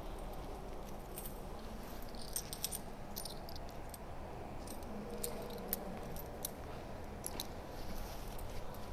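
Quiet room tone with a faint steady hum and scattered light clicks, most of them a couple of seconds in and again about seven seconds in.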